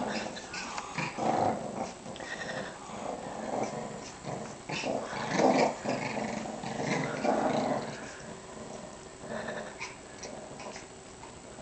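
Small dogs growling in play while tugging on a rope toy, in repeated bursts that grow fainter after about eight seconds.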